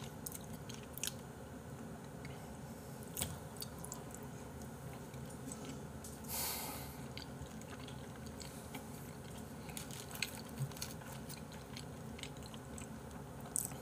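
A person chewing raw seasoned beef (yukhoe) with the mouth closed: soft, wet chewing with small scattered clicks. A short breathy hiss sounds about six and a half seconds in.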